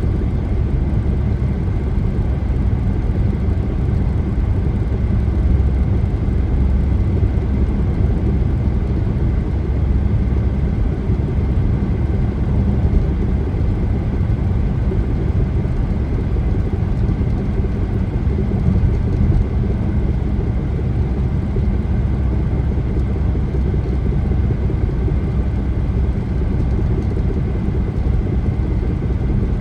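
Steady road and tyre noise and engine rumble heard from inside a moving car's cabin at highway speed, with no change in level.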